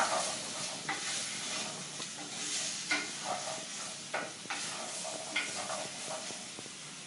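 Diced vegetables sizzling in oil in a glazed clay pot while being stirred with a wooden spoon; the spoon knocks and scrapes against the pot in irregular clicks over a steady frying hiss.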